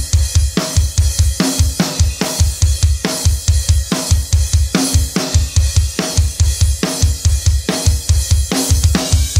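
Rock drum kit played alone, without backing music: fast double bass drum runs under regular snare hits about twice a second, with cymbals ringing over the top.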